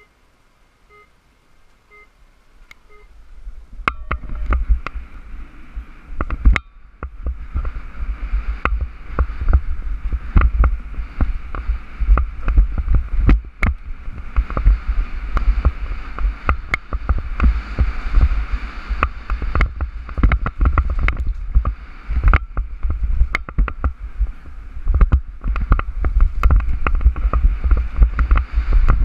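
Electronic start-gate timer beeping the countdown: three short beeps about a second apart, then a longer start beep. The downhill mountain bike then drops in and runs fast over a dirt trail, with heavy wind on the helmet-mounted microphone and constant rattling and knocking from the bike over bumps and roots.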